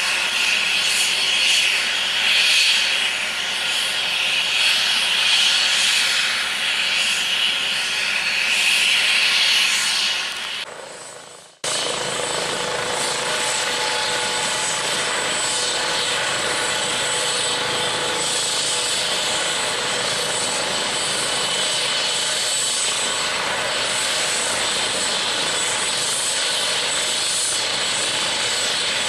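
Airbus H135 (Eurocopter EC135) helicopter running on the ground with its rotor turning: a steady rushing hiss of the turbines and rotor with a thin high whine. About eleven seconds in the sound fades and cuts out for a moment, then comes back just as steady.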